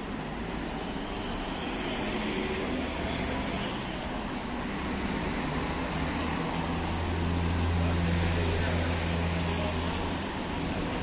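Street traffic noise, with a low steady engine hum that grows louder about six seconds in and fades near the end.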